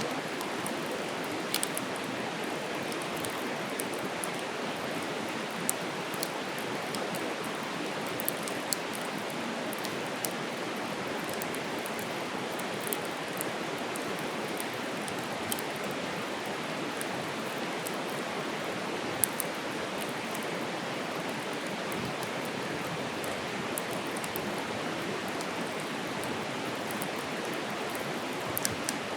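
Wood campfire burning: a steady hiss of flames with scattered crackles and a few louder pops from the wood.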